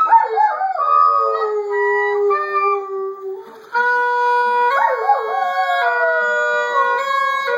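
Oboe playing slow held notes while a greyhound howls along, its howls sliding up and down in pitch, strongest right at the start and again about five seconds in. Both break off briefly about three and a half seconds in.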